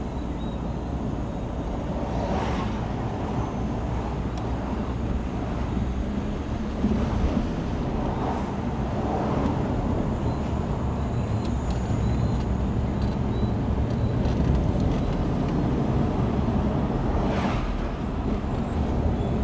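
Steady engine and road noise of a moving car, a continuous low rumble without sharp events.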